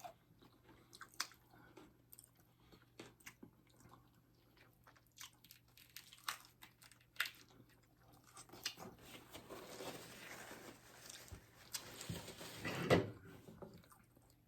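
Chewing and biting into fried corn tostadas, close to the microphone: scattered short crunches and mouth clicks, with a denser, louder stretch of crunching about eight seconds in that peaks just before the end.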